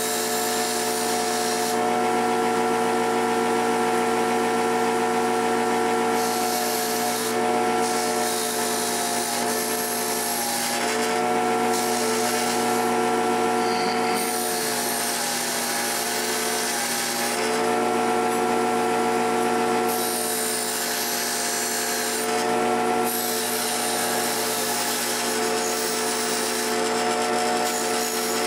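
Electric power tool's motor running steadily, its pitch sagging now and then under load. A hissing grinding noise comes and goes as a steel knife blade is pressed against the abrasive.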